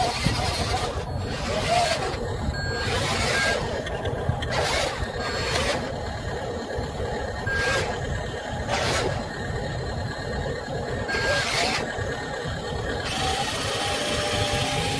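Radio-controlled dump truck running, its motors working as it reverses and raises its tipper bed to dump a load of dirt.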